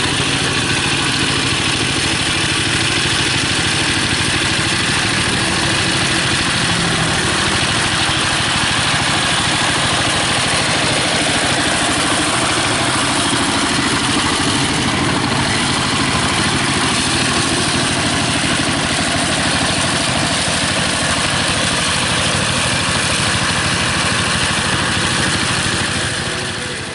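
Two-wheel power tiller's single-cylinder diesel engine running steadily under load as the machine works through wet mud, fading slightly near the end.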